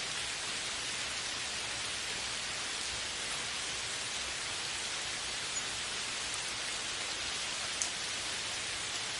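Steady rain falling, an even hiss with now and then a single louder drop.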